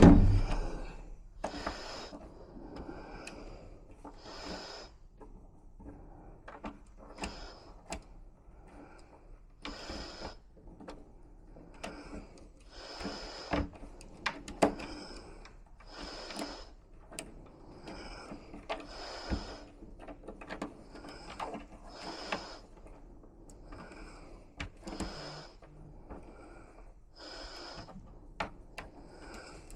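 Picking tools working inside a five-lever lock: small metallic clicks and short scraping bursts, repeating irregularly every second or two.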